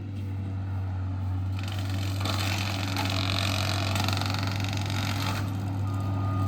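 John Deere skid steer's diesel engine running with its brush hog attachment clearing brush. Under a steady low engine hum, a louder rushing noise builds from about a second and a half in and drops away at about five and a half seconds.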